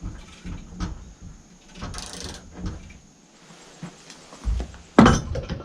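Metal knocks and clunks as the bandsaw blade on a Woodland Mills sawmill is tensioned by hand, with a short rasping scrape about two seconds in and a sharp clack near the end.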